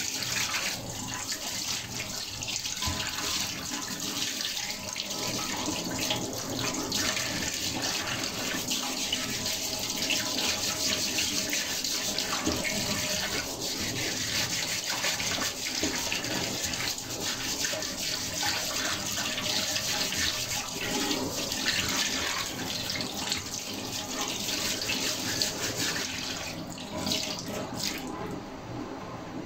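Tap water running into a stainless-steel sink and splashing over a goat trotter as hands rinse and rub it. The running water dies down near the end.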